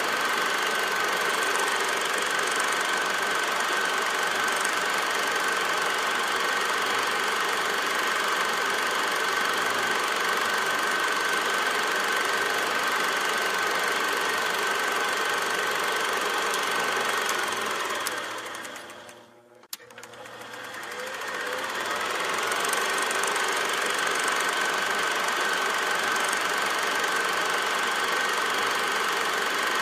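Steady mechanical running noise with a constant high whine and a faint low hum. It fades out almost to nothing a little past the middle, then fades back in.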